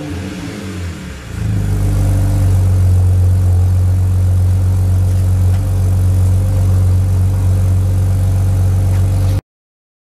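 BMW 330i's N52 3.0-litre straight-six through an Active Autoworke Signature exhaust, falling back from a throttle blip in the first second and a half, then idling steadily. The sound cuts off abruptly near the end.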